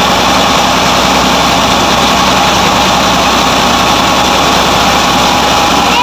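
Combine harvester running at steady speed while unloading, its engine and threshing and auger drive making a loud, even mechanical din as the auger pours threshed wheat into a trailer.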